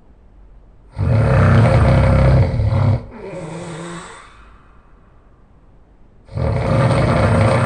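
A person snoring loudly: two long snores about five seconds apart, each about two seconds, with a quieter breath out after the first.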